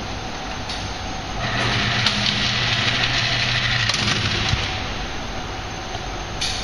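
Steady mechanical noise with a motor hum and whine that starts about a second and a half in and stops about four seconds in. A few faint clicks come through. No shots are fired.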